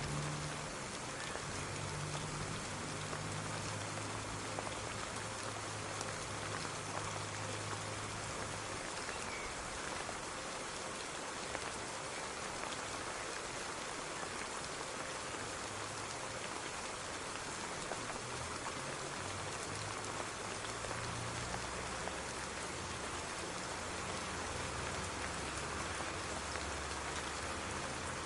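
Steady rain falling and pattering on surfaces, an even hiss of many drops.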